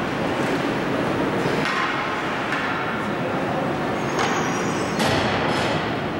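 Ice hockey rink noise during a stoppage in play: a steady din from spectators and players, with scattered knocks of sticks and skates on the ice, the sharpest about five seconds in.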